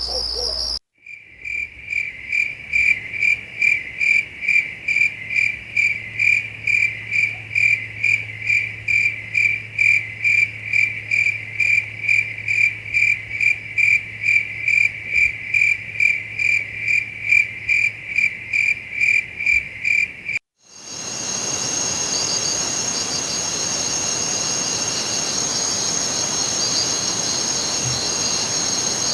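Crickets chirping at night, in two recordings separated by brief silences. First, a single cricket chirps steadily at about two and a half chirps a second for nearly twenty seconds; after a brief silence, a dense chorus of crickets trills continuously at a higher pitch.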